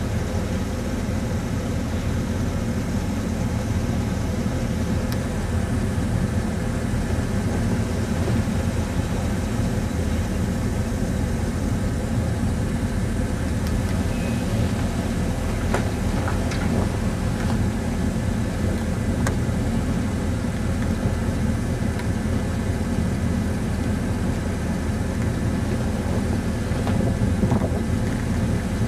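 Vehicle engine running steadily with a continuous low rumble and a few faint clicks.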